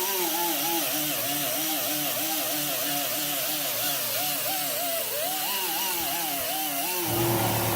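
Die grinder spinning a Scotch-Brite disc against a steel bolt-cutter handle. Its whine wavers up and down about three times a second as the tool is leaned on and moved over a curved surface. Near the end the pitch drops and holds steady.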